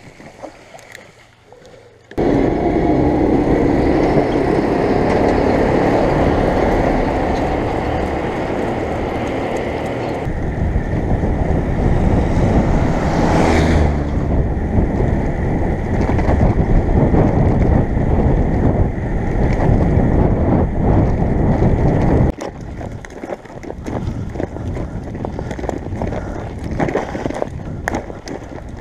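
Wind buffeting the microphone of a handlebar-mounted camera while cycling along a road; it starts suddenly about two seconds in and swells briefly near the middle. After about 22 seconds it drops to a quieter rumble with short rattles as the bicycle rides over a rough dirt track.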